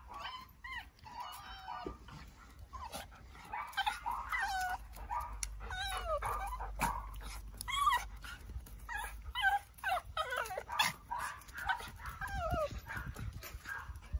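Cavalier King Charles Spaniel giving a long string of short, high, meow-like whining cries at the peak of its excitement during rough play with another dog. Many of the cries slide down in pitch.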